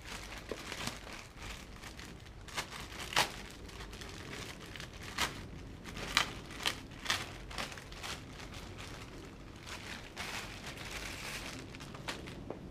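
Irregular clicks, knocks and crinkling, as of objects and packaging being handled.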